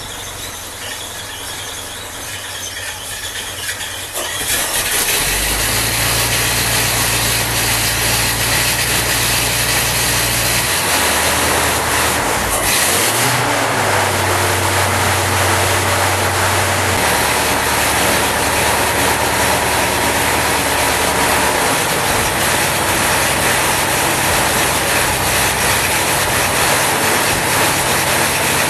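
Rebuilt 1927 Cadillac 314 V8 engine running, getting louder about four seconds in and then running steadily, its low tone shifting a few times.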